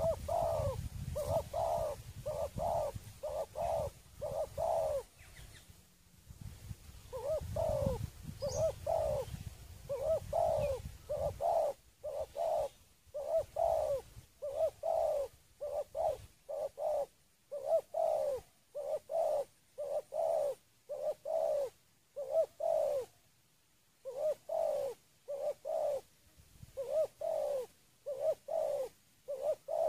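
Spotted dove (terkukur) cooing, a steady run of short, rhythmic coo notes in repeated phrases broken by brief pauses. A low rumble runs under the first few seconds and again from about 7 to 12 seconds in.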